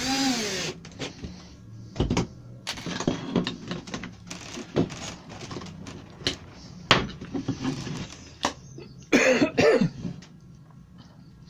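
A cordless drill-driver drives a screw into a concealed cabinet hinge's mounting plate at the start, its motor pitch falling as the screw seats. Then come sharp clicks, knocks and scrapes as the drill is set down, the hinge is clipped onto its plate and the chipboard panels are handled. A short cough about nine seconds in.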